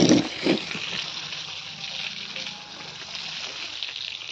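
Water running from a garden hose and splashing across a concrete yard: a steady hiss, with two short dull bumps right at the start.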